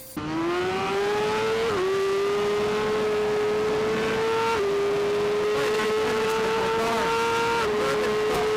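Racing motorcycle engine at high revs under full throttle, cutting in suddenly. The pitch climbs and dips briefly about three times as it shifts up through the gears.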